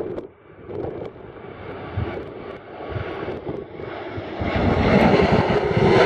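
Boeing 777-300 airliner's jet engines running, a steady roar that grows much louder about four and a half seconds in as the aircraft nears.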